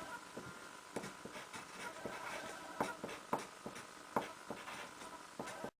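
Pencil writing on paper: irregular light scratches and sharp ticks, over a faint steady hum. The sound cuts off abruptly near the end.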